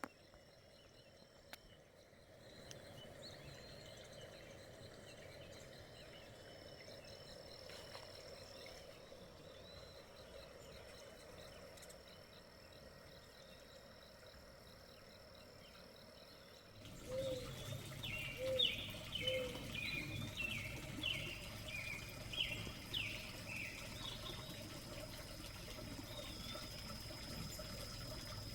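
Outdoor garden ambience: a steady high insect drone with scattered bird chirps. About two-thirds of the way in, the ambience turns suddenly louder, with a steady low rush under a burst of bird song and a few short lower calls.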